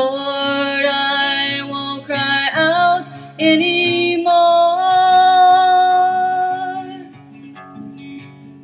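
Closing bars of a slow song with acoustic guitar: a long held note rings over the accompaniment, then the music fades out about seven seconds in.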